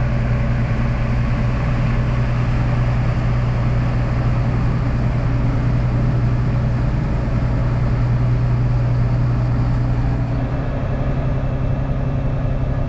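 Diesel farm tractor engine running steadily, with a slight shift in its tone about ten seconds in.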